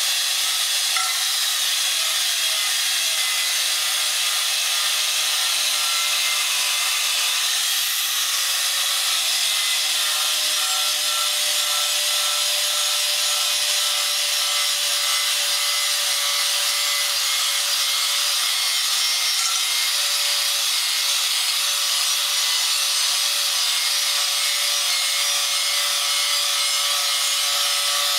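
A 4.5-inch Milwaukee angle grinder running with a coarse Scotch-Brite stripping pad against the bottom of a cast iron skillet, steady and unbroken: an abrasive hiss over the motor's steady whine. It is surface prep, smoothing out imperfections in the iron before seasoning.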